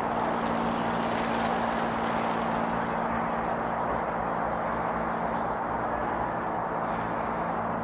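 Steady, unbroken rush of distant road traffic with a low, even hum underneath.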